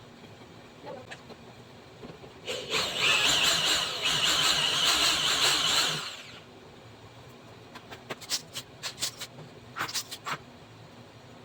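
Power drill running for about three and a half seconds, as when drilling holes or driving screws for blind brackets, followed by a scatter of short clicks.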